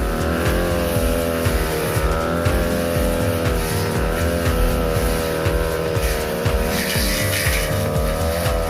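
Brush cutter with a 45 cm blade running steadily while cutting grass, its engine pitch wavering a little.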